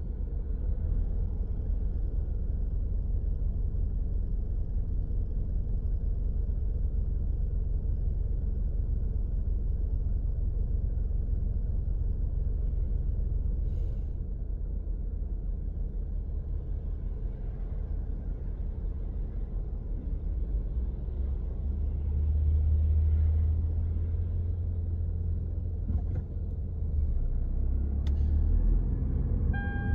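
Low, steady rumble of a car heard from inside the cabin in slow traffic, engine and road noise, swelling about two-thirds of the way through as the car moves off.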